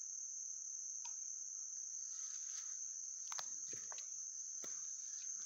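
A woodland insect chorus drones steadily at a high pitch. From about three seconds in, a few crackles and rustles of footsteps in dry leaf litter join it.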